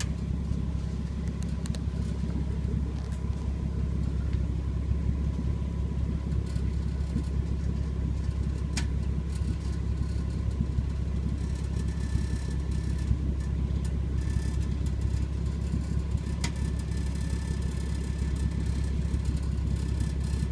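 Car engine idling steadily through a Nismo exhaust system, with a rattling from the exhaust. Two sharp clicks stand out, one about nine seconds in and one near the end.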